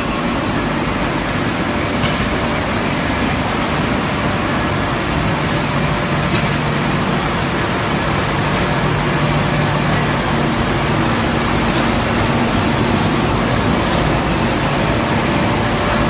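Machinery of an LDPE film recycling washing line running: a steady, loud mechanical din with a low hum underneath.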